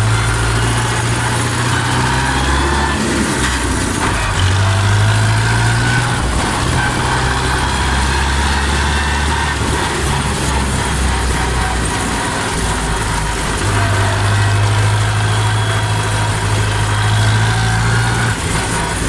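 Four-cylinder, four-stroke diesel engine of a Steyr 650 Plus tractor running, its low note shifting down and back up a few times.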